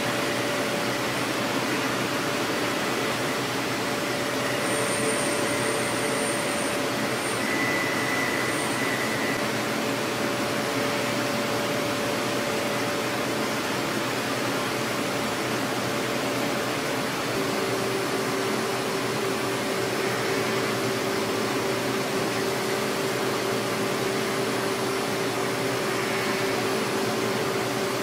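5-axis CNC mill roughing a Ti-6Al-4V titanium blisk with a ball end mill under flood coolant: a steady rush of coolant spray and cutting noise, with a steady whine from the cutting. A second, lower tone joins a little past halfway.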